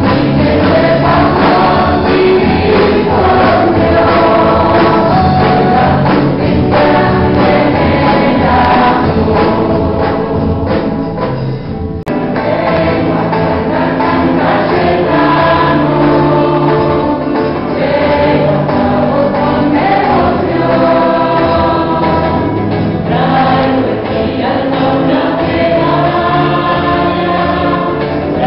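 Background music: a choir singing a religious song over instrumental accompaniment.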